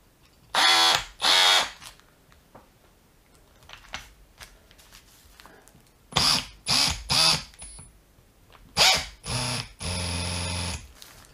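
Bosch GSB 18V EC cordless brushless combi drill's motor and gearbox running in short trigger bursts: two near the start, three about six seconds in, then two more and a steady run of about a second near the end. It is a test run of the freshly reassembled drill, which the owner suspects has its motor slightly misaligned.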